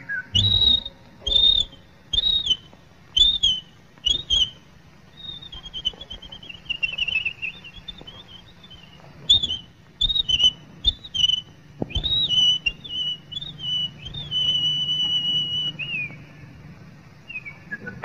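Whistled cartoon bird calls: five short chirps that rise and fall, about one a second, then a warbling run, more chirps, and a long held whistle that drops away near the end. A faint low hum runs underneath.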